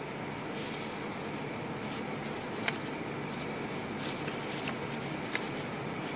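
Paper being handled: a few soft ticks and rustles of a sheet of lined paper over a steady background hiss.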